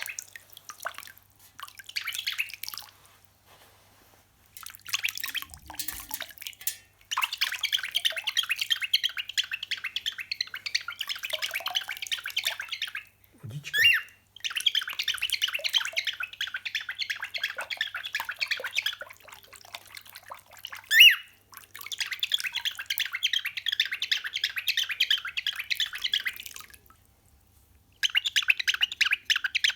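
Cockatiel imitating the sound of running water: long runs of rapid, hissing chatter lasting several seconds each, broken by short pauses. Two louder single calls cut in, about halfway through and again about two-thirds of the way in.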